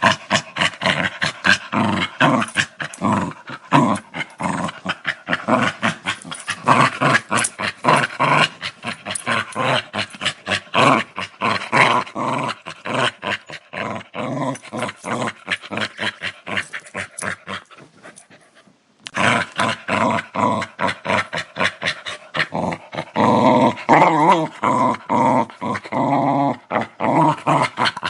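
A dog growling in a rapid run of short pulses. The growl fades out about 18 seconds in, stops for under a second, then starts again.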